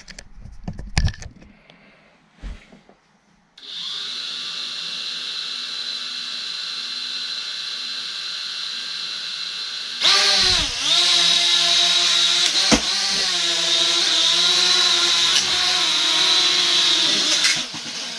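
Elfie mini folding quadcopter's motors and propellers whining. A few knocks come first; a few seconds in the motors start with a steady whine, which jumps louder about ten seconds in, its pitch dipping and wavering as the throttle changes, with a sharp knock partway through, and it cuts off shortly before the end.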